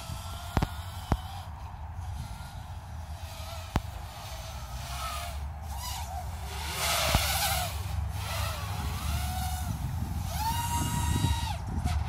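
The electric motor of a radio-controlled aircraft in flight, whining with a pitch that rises and falls as the throttle changes, then holding a steady higher whine near the end. Wind buffets the microphone with a low rumble, and there are a few sharp clicks.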